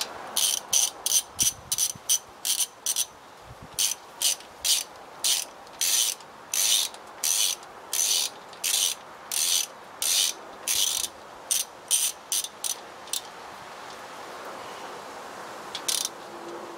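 Socket ratchet wrench clicking in quick back-and-forth strokes, about two strokes a second, as a bolt is run down and tightened; the strokes stop about 13 seconds in, with one last short stroke near the end.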